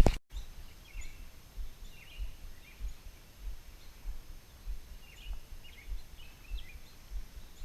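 Small birds chirping now and then over soft, regular low thuds about every 0.6 s, at the pace of footsteps walking along the creek bank.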